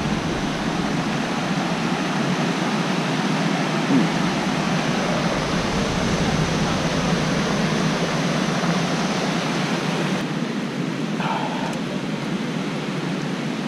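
Steady rushing of a waterfall pouring over granite ledges, softening a little about ten seconds in.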